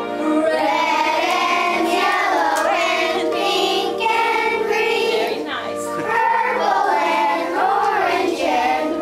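A group of young children singing together in unison, with recorded accompaniment music underneath.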